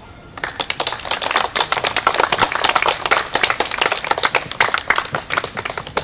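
Audience applauding: many hands clapping, starting about half a second in and thinning out near the end.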